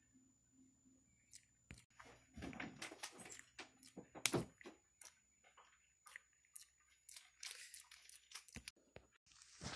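Java macaque grooming a person's hair at close range: faint, irregular rustling of fingers through hair with small clicks and mouth sounds, one sharper click about four seconds in.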